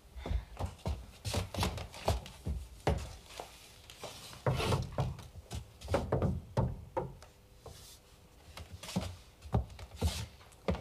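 Wooden wardrobe being opened and searched: a run of irregular knocks and thunks on wood, with rubbing and rustling between them.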